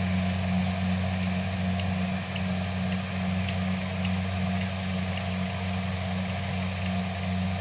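Kubota DC-70 combine harvester's diesel engine running at a steady, even drone while harvesting, with a few faint ticks in the middle.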